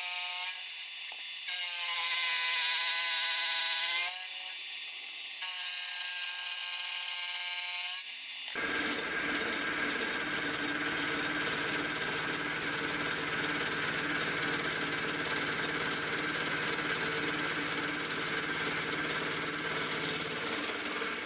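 Milling machine cutting a block of annealed cold-rolled steel. For the first eight seconds or so the cut gives a pitched whine that breaks off and starts again twice. After that comes a steadier, noisier cutting sound with a thin high tone and a low hum, which stops shortly before the end.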